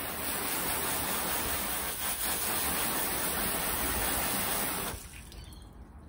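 Steady spray of water hissing against the air conditioner outdoor unit's sheet-metal panel, rinsing off foam coil cleaner; it stops about five seconds in.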